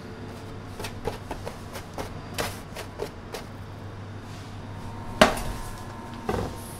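Bakery work sounds over a steady low hum: a run of light taps and knocks, then a sharp metallic clank about five seconds in that rings briefly, as of a metal baking tray knocked or set down, and one more knock a second later.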